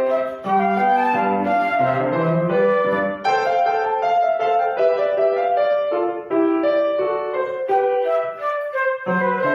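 Flute and piano playing a lively dance piece together, a quick melody of short notes over piano accompaniment.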